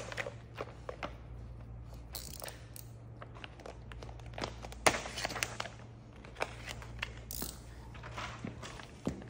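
Plastic window tint film crinkling and crackling as a sheet is handled and pressed against a car window, with scattered clicks and one sharp tap about five seconds in, over a steady low hum.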